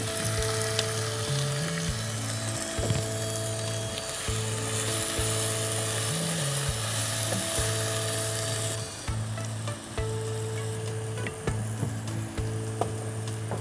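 Goat-meat korma sizzling in a pot as it is stirred and scraped with a wooden spatula; the meat has cooked down in its own yogurt liquid with no water added. The sizzling hiss eases about nine seconds in, under background music of held notes.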